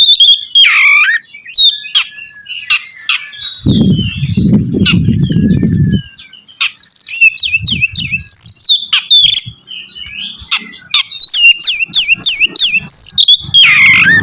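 Oriental magpie-robin (kacer) singing loudly: fast runs of sharp chirps and whistled notes gliding up and down, thinning out for a few seconds mid-way. A low rumbling noise lasts about two seconds, starting around four seconds in.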